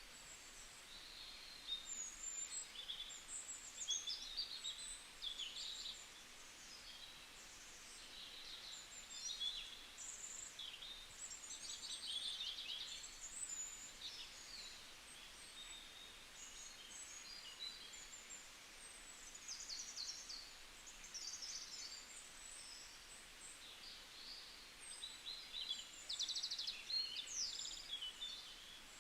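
Birds singing and calling in a forest, a scattered chorus of short high chirps and quick trills over a faint steady hiss.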